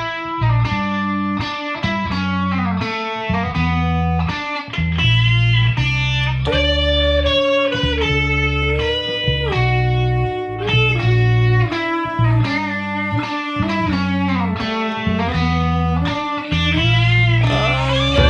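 Background music: a lead melody whose notes slide and bend, over a pulsing bass line.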